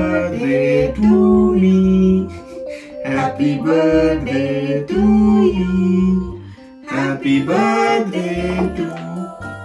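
Background music: a song with guitar and singing.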